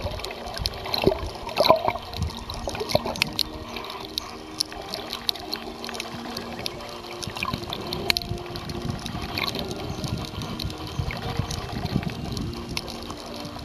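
Water sloshing and bubbling around an underwater camera, with many small clicks and crackles and a low steady hum underneath.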